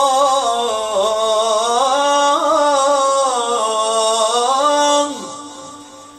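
A man's voice chanting the Islamic call to prayer (adhan), one long, melismatic phrase drawing out 'rasūlu-llāh' that rises to a peak and falls back in ornamented turns. It breaks off about five seconds in and the room's echo fades after it.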